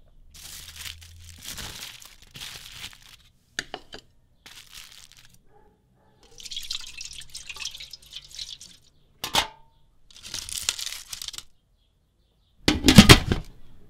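Aluminium foil crinkling in several bursts as it is folded into a packet around a fish fillet. A sharp knock comes a little past the middle, and a louder clatter near the end.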